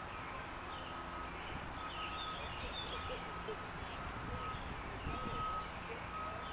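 Outdoor ambience with small birds chirping and a steady high beep that cuts out and comes back about once a second, over a low background rumble.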